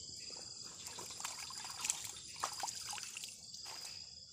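Small splashes and drips of water as hands rinse a freshly cleaned catfish in shallow swamp water, over a steady high-pitched insect chorus.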